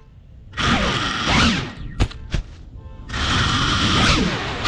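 FPV quadcopter's motors and propellers surging twice under punched throttle, the pitch sliding up and down, with a few sharp knocks in between.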